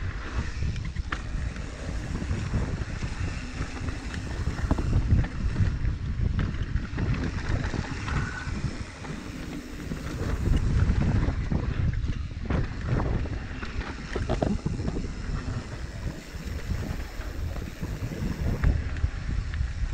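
Mountain bike descending a dirt trail: wind rushes over the rider's camera microphone under a constant low rumble, with scattered knocks and rattles as the bike goes over bumps.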